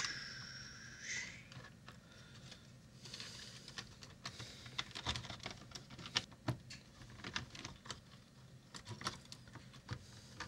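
Faint scattered clicks and light taps of plastic and metal parts being handled as a PowerBook G3 laptop is taken apart and its hard drive assembly lifted out. A brief high squeak comes at the start.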